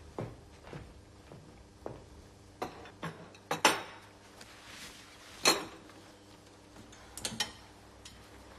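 Cup and saucer and cutlery clinking and knocking on a table: a string of short clinks, the loudest two about three and a half and five and a half seconds in, with a quick cluster near the end.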